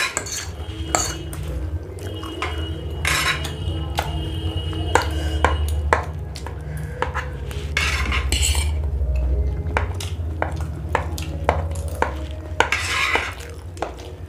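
Metal forks clinking and scraping against plates as macaroni pasta is scooped up, with many quick sharp clicks at uneven intervals over a steady low hum.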